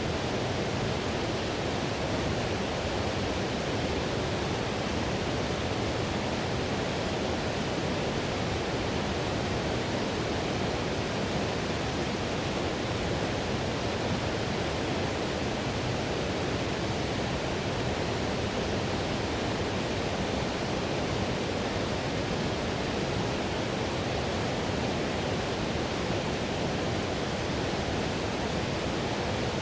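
Whitewater river rushing steadily: a dense, even roar of moving water, heaviest in the low and middle range.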